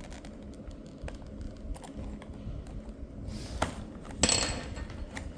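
Product packaging being opened with a small tool instead of scissors: light clicks and handling noises, then a short scraping tear about three and a half seconds in and a louder, sharper scrape a little after four seconds.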